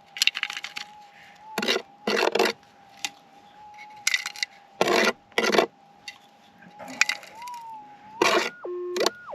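Gold-nugget metal detector's steady threshold hum from its speaker, wavering briefly and dropping to a lower tone near the end. Over it, about nine short, loud scrapes and strikes of a digging pick in rocky ground and bedrock.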